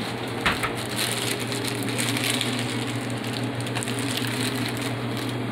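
Garlic, white wine and lemon simmering and sizzling in a metal sauté pan on a gas burner, over a steady low hum, with a single sharp knock about half a second in.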